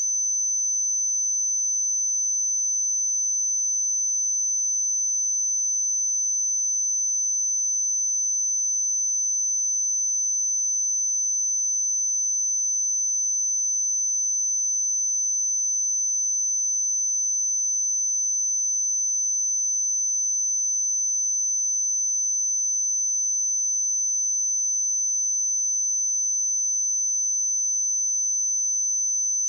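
A steady, unbroken 6102 Hz sine-wave test tone: a single high-pitched pure tone at constant loudness.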